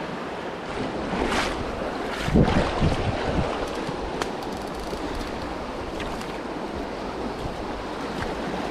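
Steady rushing of a river current, with a few low thumps about two to three seconds in.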